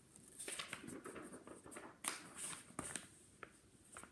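Pages of a picture book being handled and turned: soft paper rustling with a few light flaps and clicks, the sharpest about two seconds in.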